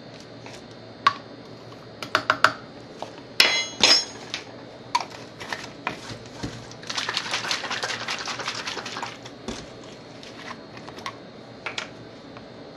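Metal teaspoon clinking and tapping against glass and plastic containers while baking soda is spooned in: scattered clicks, a ringing clink about three and a half seconds in, then about two seconds of dense, rattly scraping.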